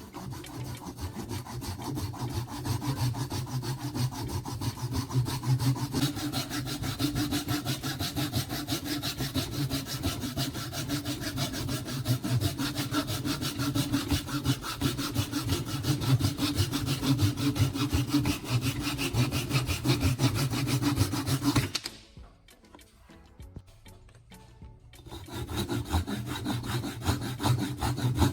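Steady rasping of a tool working against material, with a low hum beneath it. It stops abruptly about three-quarters of the way through and starts again a few seconds later.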